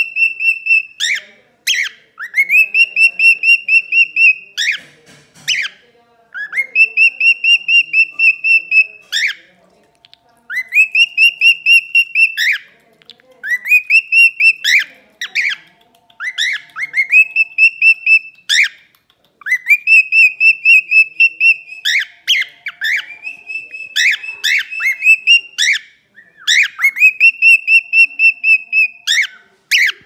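A male cockatiel singing a whistled song, repeated over and over: each phrase slides up into a high note held for a second or two with a rapid warble in it, broken by short sharp chirps.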